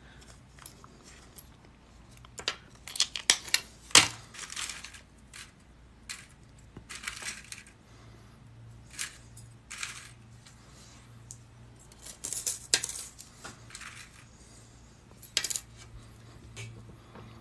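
Small metal parts being handled on a hard tabletop: metal mandrel rods, jump rings and paperclips clinking and tapping in scattered clusters of short clicks, the loudest about four seconds in.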